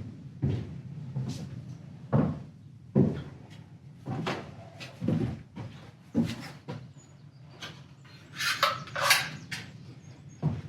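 Irregular knocks and clatters of hard objects being handled or set down, about a dozen spread out, with two louder scraping or rustling bursts near the end.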